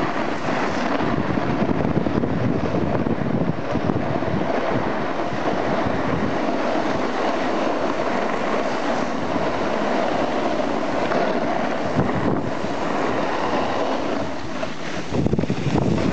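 Steady hiss and scrape of sliding fast over packed, groomed snow, mixed with wind rushing over the microphone; the wind gets louder about fifteen seconds in.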